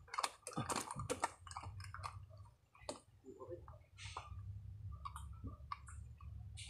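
Irregular clicks and crackles of close handling, densest in the first second and a half and then scattered, over a low steady hum.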